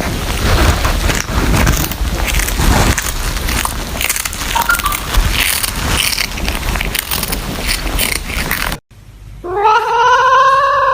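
A loud, even noisy rush with scattered clicks, cut off abruptly near the end. Then a cat gives a long, drawn-out meow that rises in pitch and holds steady.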